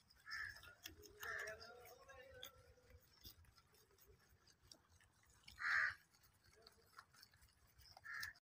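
Faint soft clicking of a crowd of rabbits nibbling grass, with four short calls in the background, the loudest about six seconds in.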